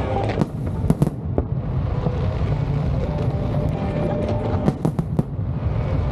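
Aerial fireworks display: clusters of sharp bangs and crackles from bursting shells, a group about half a second to one second in and another around five seconds in, over a steady low rumble.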